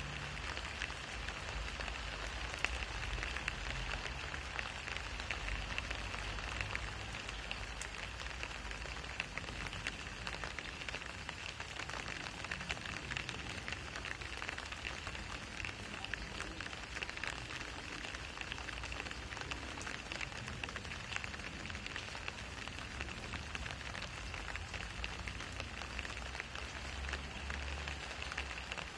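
Steady rain falling on wet asphalt and a shallow puddle: a dense, even stream of small drop ticks, with a low rumble underneath.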